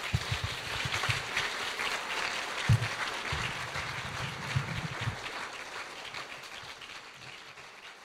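Audience applauding, many hands clapping together, fading away gradually over the last few seconds.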